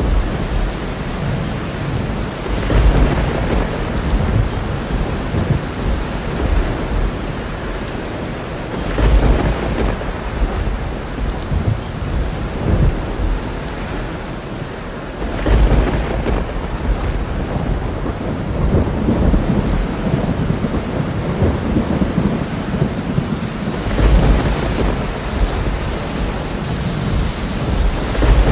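Thunderstorm: steady rain falling, with several rolls of thunder swelling up through it, about five in all.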